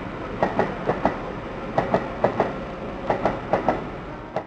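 Berlin S-Bahn electric train moving off through the station, its wheels clicking over rail joints in quick pairs over a steady rumble. The sound cuts off suddenly at the end.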